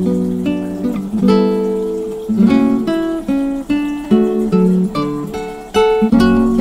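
Background music: an acoustic guitar playing picked notes and chords at a steady pace.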